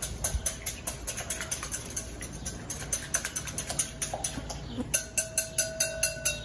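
Wire whisk beating eggs in a glass mixing bowl, the whisk clicking rapidly against the glass, several strikes a second, faster and louder in the last second and a half.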